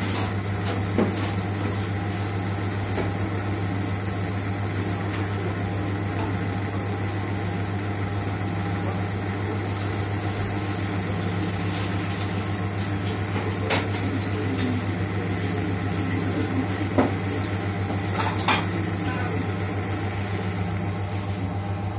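A steady hiss over a low hum from the hob as oil heats in a steel frying pan, with a few sharp clinks of a metal spoon against the pan, the clearest about 14 seconds in and two more a few seconds later.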